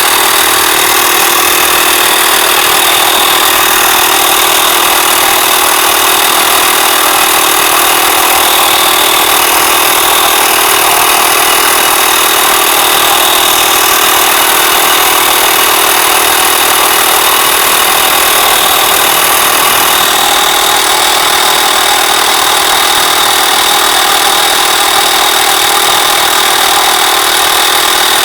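Small portable tyre-inflator compressor running steadily, pumping up a freshly fitted motorcycle inner tube that is still far below its working pressure.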